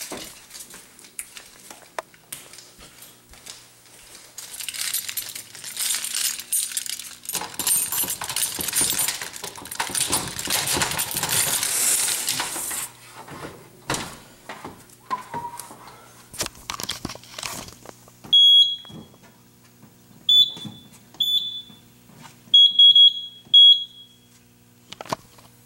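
Rustling and clicking handling noise, then a Simplex 4100U fire alarm control panel's piezo sounder giving five or six short, high beeps at uneven spacing in the second half.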